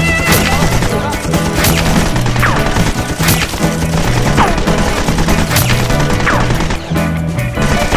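Dubbed gunshot sound effects, a string of sharp shots, several trailing off in a short falling whine like a ricochet, laid over background rock music with a steady bass line.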